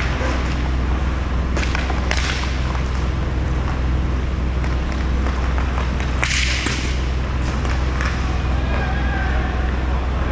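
Inline hockey play: sharp cracks of sticks striking a puck and the puck hitting the rink, a couple about two seconds in and the loudest about six seconds in, over a steady low hum.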